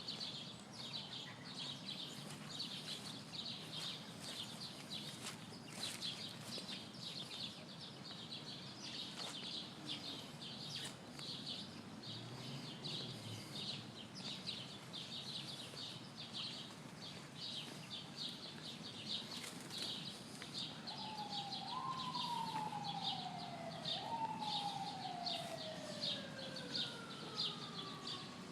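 Outdoor ambience with a continuous high, rapid chirping over a low hum. Near the end a distant wailing tone, like a siren, rises quickly and falls slowly twice, then falls in one long glide.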